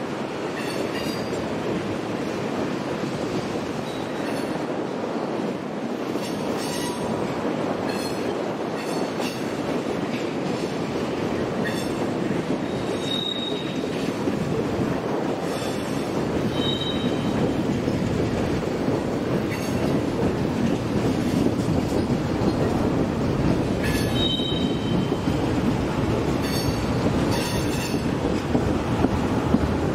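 Freight train of tank cars rolling past: a steady rumble with irregular clicks of wheels over rail joints, and a few short high-pitched squeals from the wheels.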